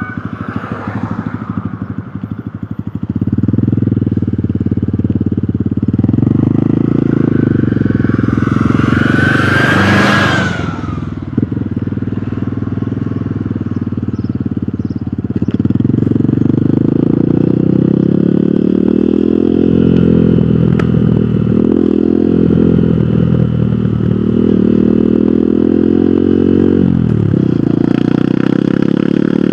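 Hero Hunk motorcycle's single-cylinder four-stroke engine running under way on the road, the note picking up about three seconds in and dipping and recovering a few times later on. A loud whoosh swells and fades about ten seconds in.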